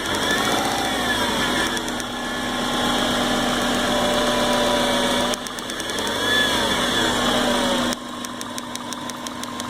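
1998 Subaru Forester's flat-four engine running rough and misfiring, the sign of a failing coil pack that breaks down when wet. Its speed swells up and falls back twice, and the sound drops abruptly in level a couple of times.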